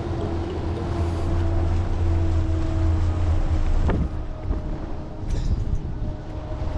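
Towboat's marine engine running steadily, then easing off about four seconds in with a brief sharp knock, with wind buffeting the microphone.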